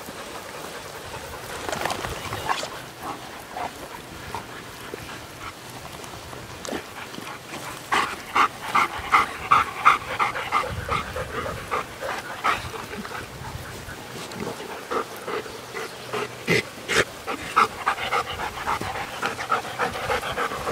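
Bernese Mountain Dog panting in quick, even breaths, about three a second, in stretches that are loudest about halfway through and again near the end.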